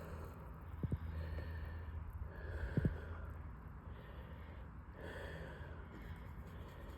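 A person breathing heavily close to the microphone, a breath about every second and a half, with two small knocks in the first three seconds and a low hum that fades out about three seconds in.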